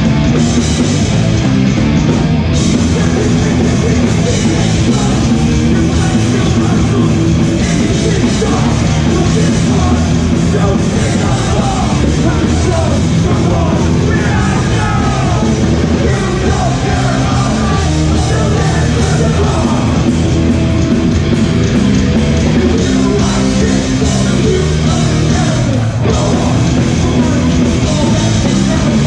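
Hardcore punk band playing live at full volume, with shouted vocals over the band.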